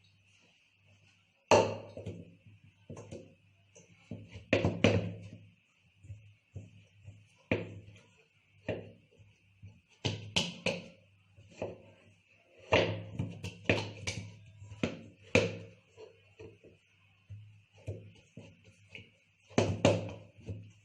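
Rolling pin knocking and rolling over pizza dough on a board, in irregular strokes and thumps.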